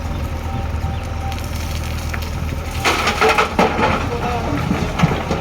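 JCB 3DX backhoe loader's diesel engine running steadily, with a short burst of clatter and knocks about three seconds in and a sharp knock near the end.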